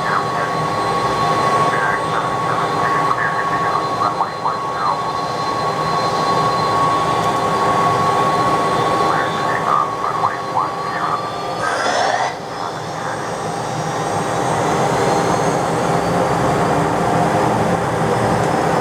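Jet engines of a three-engine McDonnell Douglas DC-10 running, a steady whine over a loud rumble. About two-thirds of the way through, the whine rises in pitch as the engines spool up, then holds at the higher pitch.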